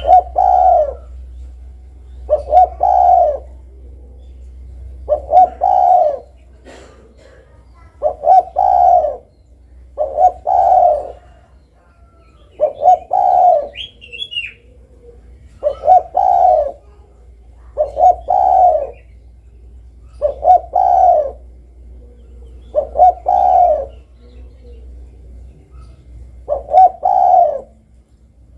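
Spotted dove (derkuku) cooing, one short phrase of a few coos roughly every two to three seconds. A brief high chirp sounds about halfway through.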